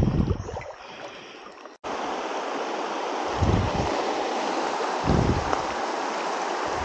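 Legs wading through a river, splashing, for the first two seconds; then, after an abrupt cut, the steady rushing of a shallow, rocky stream with dull low thumps on the microphone every second and a half or so.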